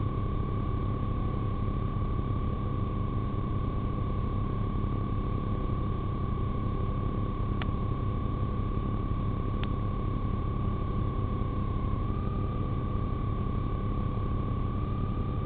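A steady high-pitched tone, like a siren, held over a constant low rumble. The tone starts to glide upward at the very end.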